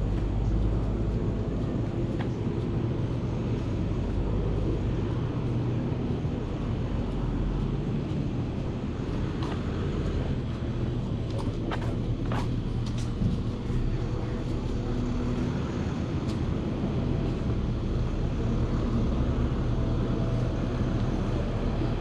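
A steady low motor drone over outdoor background noise, with a few faint clicks about halfway through.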